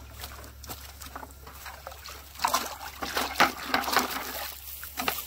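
A fish splashing in a plastic bucket of water, in a loud run of splashes starting a little over two seconds in and dying away near the end.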